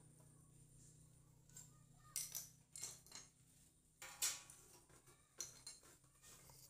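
Metal objects clinking and knocking together several times, in small clusters through the middle, over a low steady hum.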